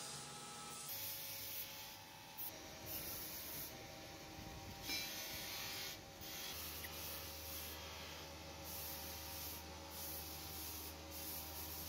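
A brass tap casting rubbed against a spinning cloth buffing wheel, a steady hissing rub over the run of the bench polishing motor, with a low motor hum entering a little over halfway through.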